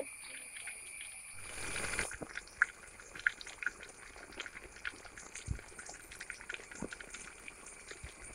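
Masala-coated rohu fish frying in hot oil in a wide uruli pan: a faint sizzle with irregular small pops and crackles of the oil.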